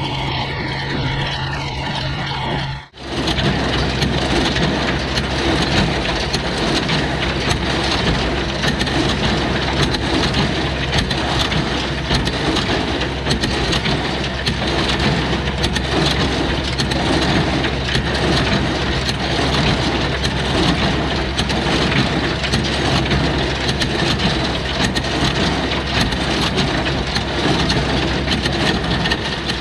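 New Holland Super 66 small square baler running: the pickup and drive chains clatter steadily over the low drone of the tractor engine driving it. For the first three seconds a tractor idles steadily, then the sound cuts sharply to the running baler.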